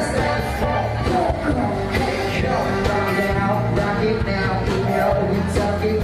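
Live band playing amplified pop-rock: singing over a steady drum beat, with keyboard and guitar.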